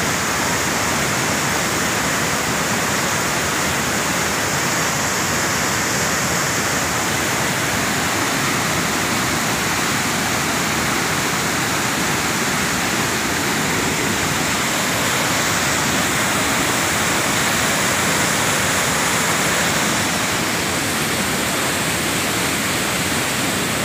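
Waterfall pouring over rock ledges: a loud, steady rush of falling water, slightly quieter near the end.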